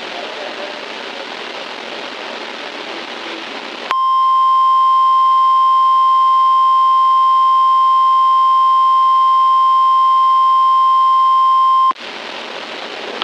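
A steady hiss of noise, then about four seconds in a loud, steady single-pitched beep, the National Weather Service alert tone used to open a tornado warning on the Emergency Alert System. The beep holds for about eight seconds, cuts off sharply, and the hiss returns.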